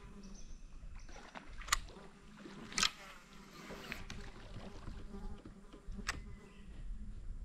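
Quiet ambience around a fishing kayak on a calm river, with a faint insect buzz and three short sharp sounds, the loudest about three seconds in.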